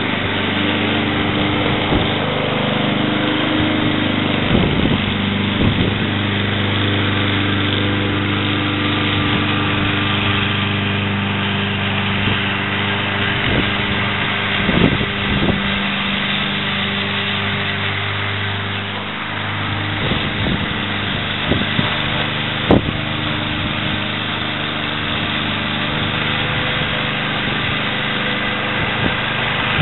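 Ariens Blade Runner self-propelled lawn mower's Kohler Courage 173cc single-cylinder engine running steadily while cutting grass and picking up dry leaves. A few sharp clicks are heard at scattered moments.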